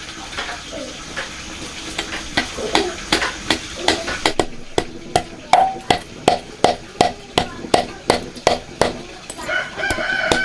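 Steady chopping with a knife, about three sharp strokes a second, growing louder partway through. A rooster crows near the end.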